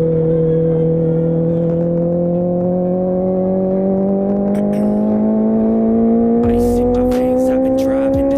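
Honda CBR650R's inline-four engine through an IXIL full-system exhaust with the dB-killer removed, pulling steadily in one gear as the revs climb slowly and evenly. A rushing noise joins about six seconds in.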